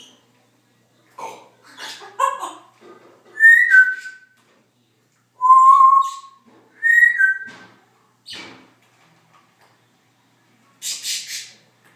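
Congo African grey parrot whistling and making noises: short chattering sounds, a falling two-note whistle, a steady lower whistle, then the two-note whistle again, with a short harsh hissing sound near the end.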